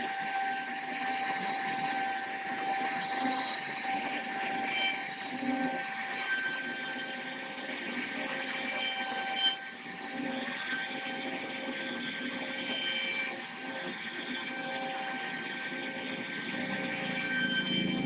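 CNC router spindle cutting into a wooden door panel: a steady whine over continuous cutting noise, with faint tones that shift as the bit moves and one brief louder spike about halfway through.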